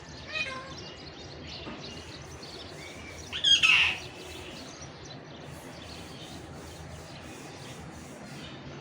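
A pet parakeet calls: a short call about half a second in, then a loud squawk about three and a half seconds in, over a steady background hiss.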